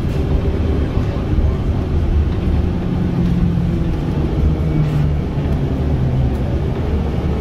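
City transit bus under way, heard from inside the cabin: a steady low rumble of engine and road noise, with a low engine drone that steps down in pitch about halfway through.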